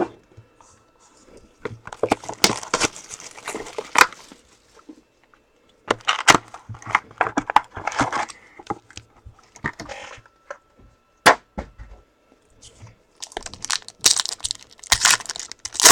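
Packaging of sealed trading card boxes and packs being torn open and crumpled by hand, in three stretches of tearing and crinkling with sharp crackles and short pauses between them.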